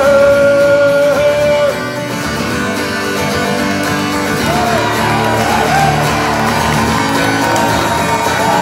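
Live acoustic guitar strummed through a PA, with a long sung note held over it that ends about two seconds in, then wordless wavering sung phrases later on.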